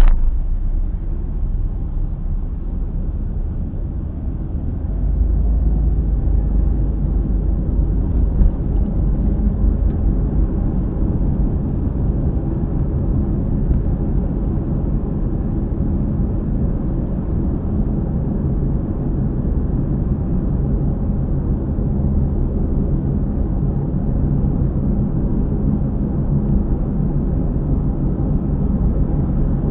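Car on the road, heard from a dashcam: low road and tyre rumble with a droning noise from around a wheel that keeps time with road speed. The owner puts it down to a hub bearing. There is a sharp thump at the very start, and the rumble grows louder about five seconds in.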